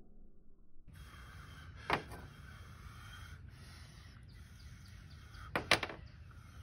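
Flint and steel: a hand-made steel striker hitting a sharp chert flake, one sharp click about two seconds in and a quick cluster of strikes near the end, over a steady background hiss.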